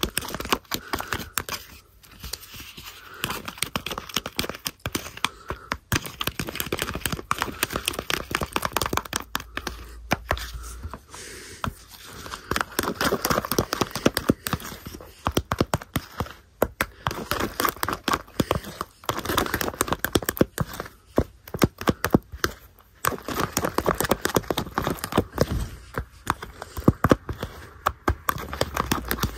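A metal spoon stirring thickening hand-soap and toilet-paper slime in a plastic tub: fast, dense clicking and crackling in runs of a few seconds, broken by short pauses.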